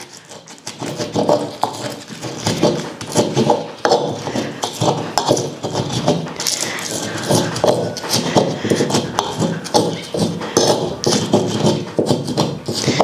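Stone pestle grinding roasted morita chiles with a little water in a glazed clay molcajete: quick, continuous knocking and scraping of stone against the ridged bowl.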